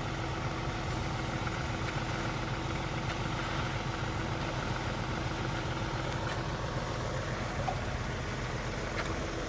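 Truck engine idling steadily, a low even hum with a faint steady tone in it.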